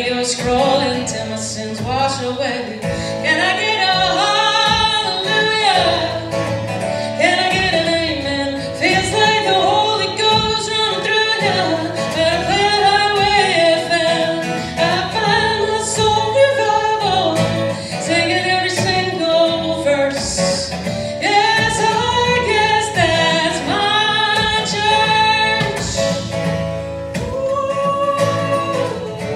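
A woman singing a pop-country song while strumming her acoustic guitar, played live through the house speakers; near the end she stops singing and the guitar plays on.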